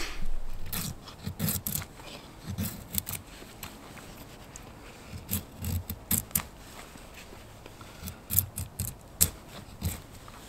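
A knife blade shaving down a split stick of dry wood into curls for fire-lighting, heard as a series of short scraping strokes with soft knocks, coming in irregular clusters.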